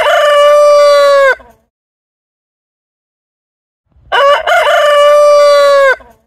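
Rooster crowing twice: the tail of one crow ends about a second and a half in, and after a silent gap a full cock-a-doodle-doo starts near the end, with short opening notes rising into one long held final note.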